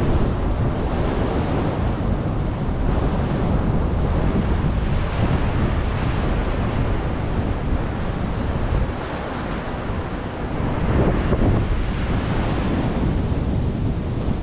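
Surf breaking on the beach, with strong wind buffeting the microphone.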